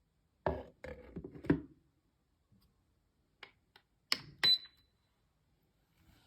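Objects being handled and set down: a quick cluster of knocks, a few light clicks, then two sharp clinks, the second ringing briefly like glass or ceramic.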